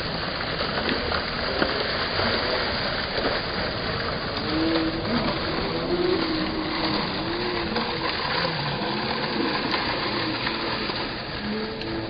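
Ground-level fountain jets spurting up through a drain grate and splashing back onto stone paving: a steady rush of falling water.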